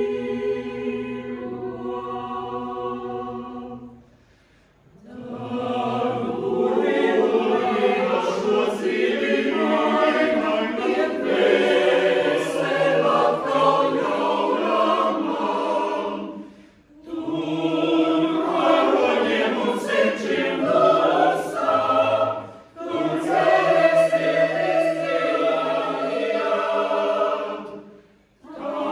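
Mixed choir of men's and women's voices singing in full harmony. The singing breaks off briefly between phrases about four, seventeen, twenty-three and twenty-eight seconds in.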